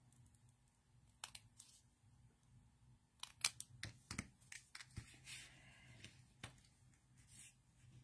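Faint scissor snips and paper handling: a strip of cardstock being cut with small craft scissors, heard as a few soft scattered clicks and a brief rustle over a low steady hum.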